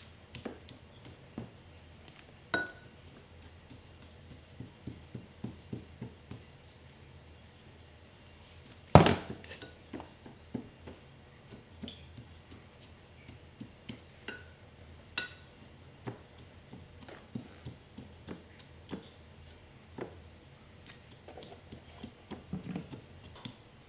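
Wooden spoon knocking and clinking in a ceramic bowl as ginger and sugar are mashed together: scattered taps, a few ringing briefly, and one loud knock about nine seconds in.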